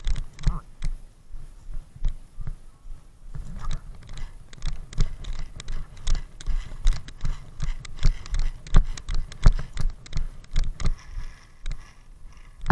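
Irregular footsteps and thumps of gear knocking against a body-worn action camera as the player moves on foot, a few knocks a second throughout.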